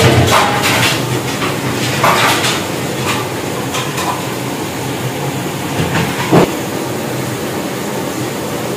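A metal spoon scraping and knocking against a large pot as carrot halwa is stirred while it fries in desi ghee, over a steady hiss. Sharp scrapes come several times in the first half and once more at about six seconds.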